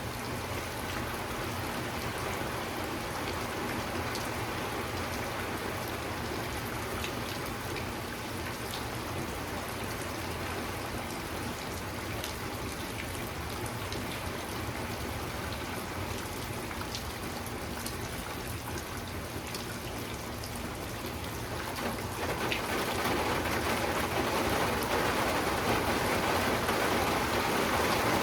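Steady rain falling, an even hiss with scattered sharp ticks of single drops. About three-quarters of the way through it grows louder and fuller.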